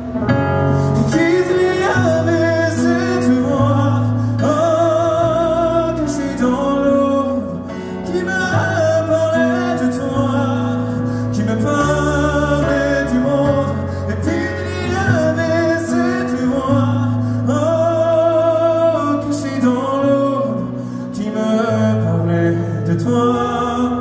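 Live song: a male voice singing long, wavering notes with vibrato over instrumental accompaniment with held bass notes.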